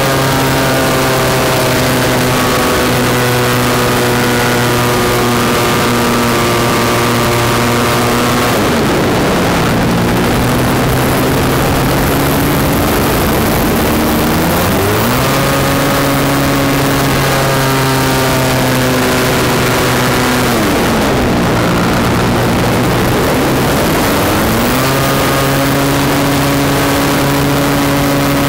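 Extra 300 aerobatic plane's engine and propeller, heard on board over steady wind rush, running at high power. Twice the power is pulled back and the pitch falls, about nine and about twenty-one seconds in, then the engine is opened up again and the pitch climbs back.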